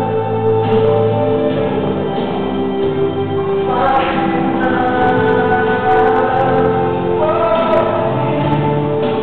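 Gospel worship music: a choir singing long held notes over instrumental backing, the chords changing every second or two.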